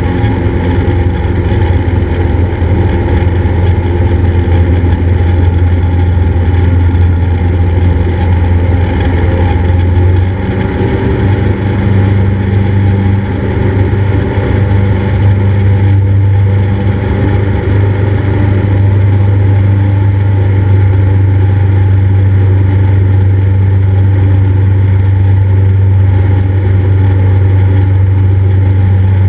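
Cessna 172's piston engine and propeller droning steadily; about ten seconds in the pitch shifts slightly as the power setting changes, then holds steady.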